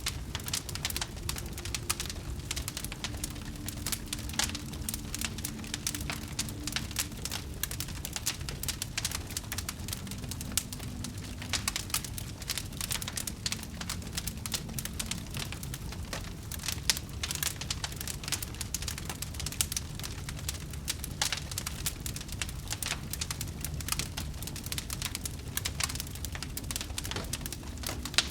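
Wood fire crackling: dense, irregular pops and snaps over a steady low rumble of the flames.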